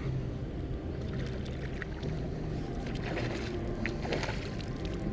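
A small hooked European sea bass splashing at the water's surface as it is reeled in, a few short splashes in the second half over a steady low background noise.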